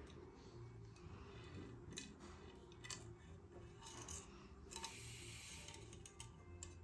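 Faint handling noise: a few light scrapes and ticks as a thin cable routing tool is poked into the internal routing port of a handlebar and the bar is shifted in the hands.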